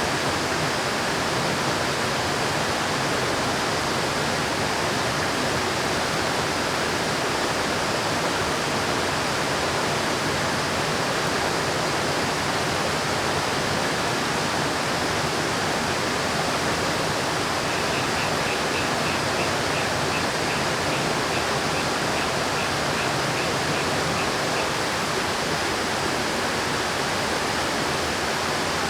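River water rushing in a steady, unbroken wash of noise.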